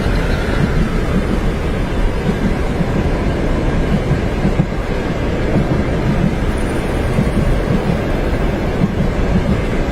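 Train running on its tracks, heard from inside a passenger compartment: a steady, even low rumble.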